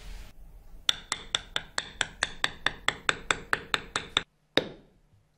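Rapid, even taps of a mallet on a metal leather-tooling stamp, about five a second for some three seconds, then one last tap, as a pattern is struck into the leather.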